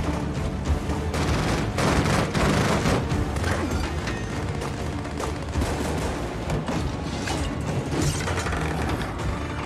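Action-film soundtrack: music with a rapid series of sharp bangs and clanks and heavy booms layered over it.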